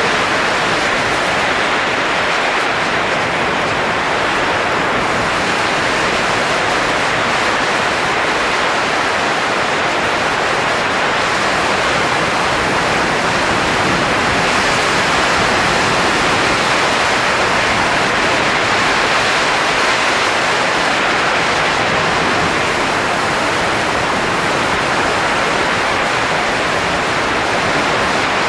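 Steady, unbroken rushing noise, a blowing-air sound effect, even in level throughout.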